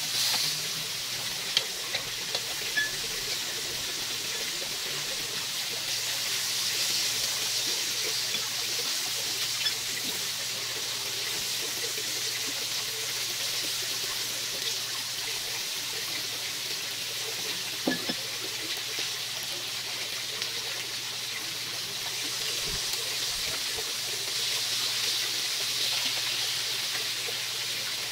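Marinated chicken fillets sizzling on an electric grill plate: a steady hiss that swells and eases a little. Now and then there are light clicks of metal tongs on the grill.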